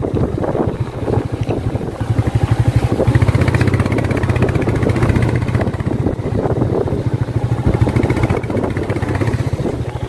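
Motorcycle engine running steadily under load as the bike climbs a hill road, heard from on the bike with a rapid, even firing beat.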